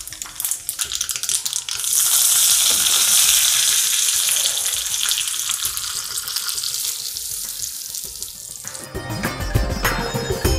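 Mustard seeds crackling and popping in hot oil in a small tempering pan. About two seconds in, a loud sizzle starts as curry leaves hit the oil, then slowly dies down. Near the end, instrumental music comes in.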